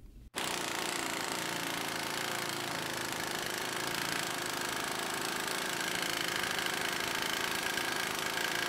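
Half-inch pneumatic impact wrench hammering steadily in reverse against a torque dyno during a timed max-torque run. It starts just after the opening moment, and a high ringing tone grows stronger in the second half.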